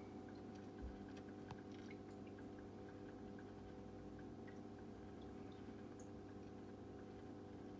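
Aquarium filter running: a faint steady hum with a few small drips and ticks of water.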